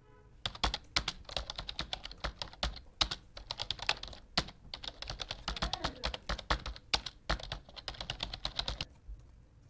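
Typing on a computer keyboard: fast runs of key clicks with a few short pauses, stopping shortly before the end.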